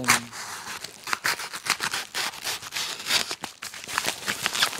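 A package being cut and torn open, its packaging rustling and crinkling in a quick run of sharp scrapes.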